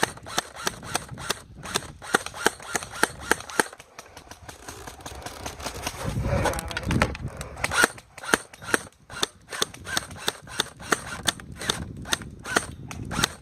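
Airsoft guns firing semi-automatic shots: a steady, uneven string of sharp pops, several a second.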